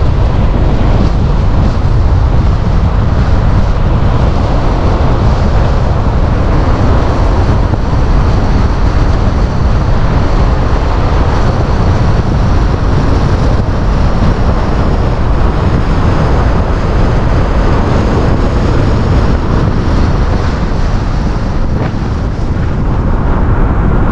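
Loud, steady wind buffeting on the microphone of a camera riding on a moving vehicle, with road noise underneath.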